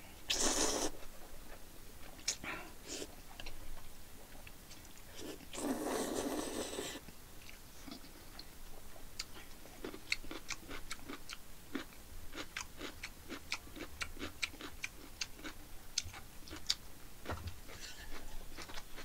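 A person slurping up jjajangmyeon noodles in black-bean sauce, two long slurps about half a second in and around six seconds in, then chewing with a run of short sharp clicks from about nine seconds on.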